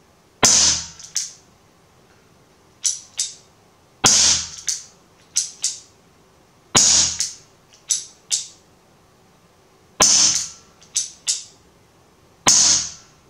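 Five shots from a Chiappa Rhino 50DS CO2 air revolver, each a sharp crack a few seconds apart and measuring about 102–103 dB on a sound meter. Pairs of quieter clicks sound between the shots.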